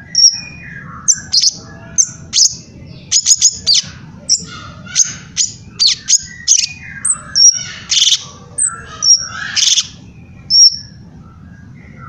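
Cungkok (leafbird) singing a fast, varied song of sharp chips, short high whistles and quick trills, note after note with barely a pause.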